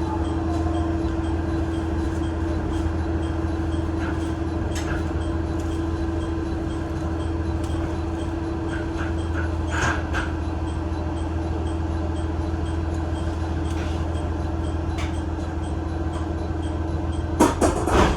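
Train running, heard from on board: a steady low rumble with one steady mid-pitched tone held throughout, a few scattered clicks, and a cluster of sharp clicks near the end.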